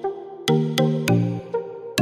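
Background electronic music: short pitched synth chords struck on a quick, steady beat.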